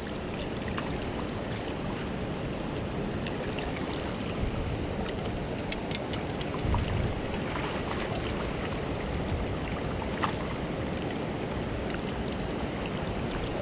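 Steady rush of river water flowing below a dam spillway, with a few light clicks and knocks scattered through it.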